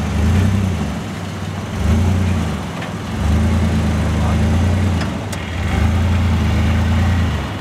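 Chevy S10 Blazer's engine labouring under a very heavy tow of about 14,000 lb, far past its 5,000 lb rating, as it pulls away with a gooseneck trailer. The engine note swells and eases about four times as the throttle is pressed and let off.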